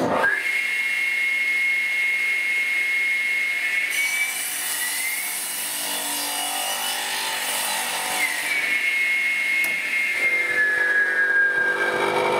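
Wadkin BRA radial arm cross-cut saw starting up with a steady high whine, then its blade pulled through a pine board, a loud rasping cut that runs for several seconds in the middle. Near the end the whine drops in pitch as the motor is switched off and its brake slows the blade.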